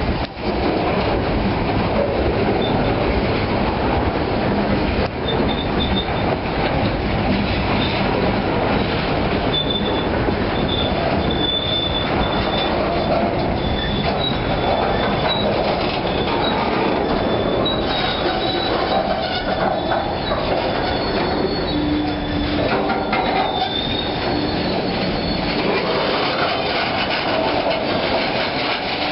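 Freight train of loaded lumber flatcars and boxcars rolling past, a steady rumble of wheels on rail. Thin high-pitched wheel squeal comes and goes between about five and eighteen seconds in.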